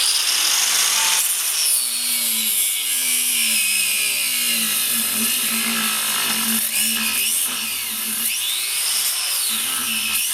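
Angle grinder with an abrasive cut-off wheel starting up and cutting into a car tire, running loud and continuous, its motor note dipping and recovering as the wheel bites into the rubber.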